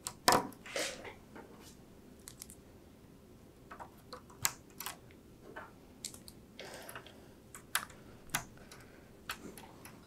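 Scattered plastic clicks and short rustles of PCIe power cables and their connectors and clips being handled and routed. The loudest click comes about a third of a second in, and the rest are spread irregularly.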